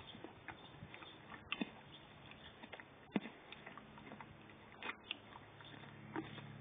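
A pony crunching and chewing a frozen apple-and-carrot ice lolly: irregular crisp cracks and crunches, a few of them sharper and louder.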